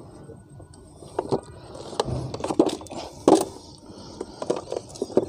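Handling noise on a Bosch EasyAquatak 120 pressure washer with its motor off: scattered plastic clicks, taps and scrapes as a fitting is tightened at the water inlet and the power cord is handled. One louder knock comes about three seconds in.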